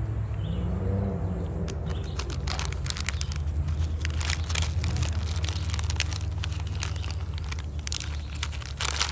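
Plastic pepperoni package crinkling and crackling in short bursts as slices are pulled out of it, over a steady low drone of airboat engines running in the distance.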